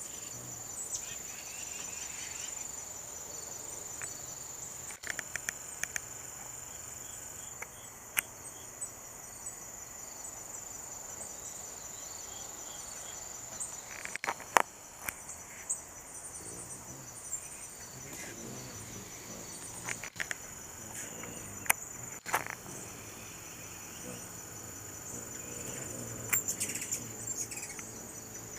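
Steady, high-pitched chorus of late-summer insects trilling without a break, with scattered sharp clicks and short chirps over it.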